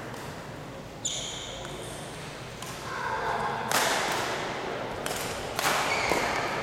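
Racket-sport rally in a large hall: sharp hits of a racket on the ball or shuttle a second or so apart, with a short high squeak about a second in.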